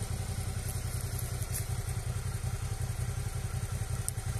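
Motorcycle engine idling steadily, a fast, even low pulse.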